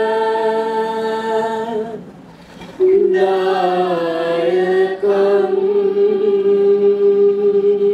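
A large group of voices chanting a verse together in unison, in long drawn-out held notes, with a short pause for breath about two seconds in.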